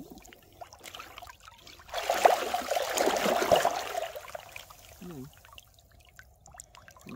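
Water splashing and sloshing for about two seconds, starting about two seconds in.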